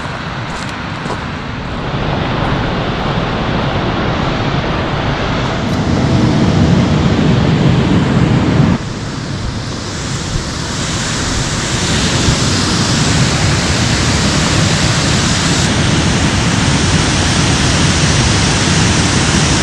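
Loud, steady rush of water pouring out below a dam. About nine seconds in, the deep part of the rush drops away and the hiss grows brighter.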